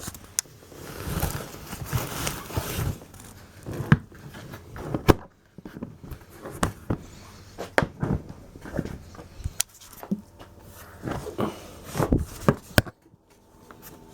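Handling sounds as a jacket and helmet are packed into a motorcycle top box: fabric rustling and scattered sharp knocks and clicks against the box.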